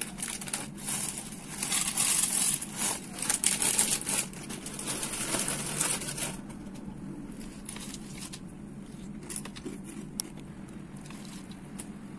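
Foil bag of chocolate cereal crinkling and rustling as it is handled and the cereal is poured out, for about the first six seconds. After that it goes quiet apart from a few light clicks.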